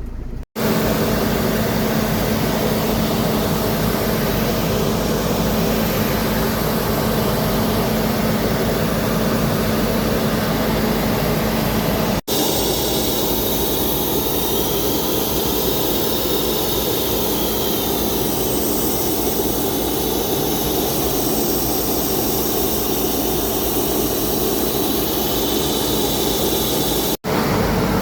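Aircraft turbine engine running loudly and steadily, a constant hum under a high whine. The sound drops out for an instant three times.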